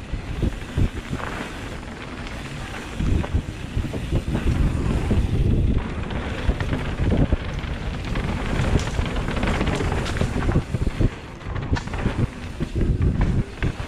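Wind buffeting the microphone of a helmet-mounted action camera during a fast mountain bike descent on a dirt trail, with rumbling tyre noise and short knocks and rattles of the bike over bumps.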